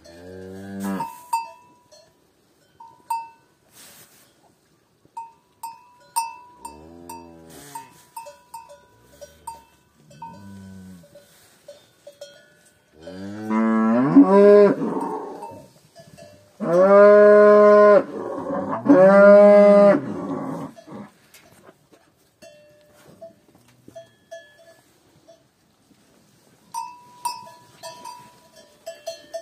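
Calves mooing close up, about six calls rising and falling in pitch, the three loudest coming in quick succession about halfway through. A small bell tinkles faintly on and off between the calls.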